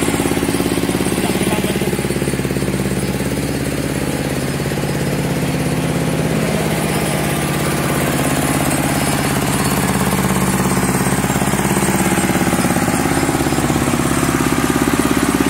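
Diesel engine of a mobile rice mill running steadily under load, driving the huller as paddy is milled, with a fast, even beat.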